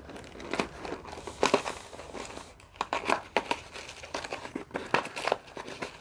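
Packaging crinkling and rustling in someone's hands as a small toy piece is taken out of an advent calendar compartment and unwrapped, in short irregular crackles.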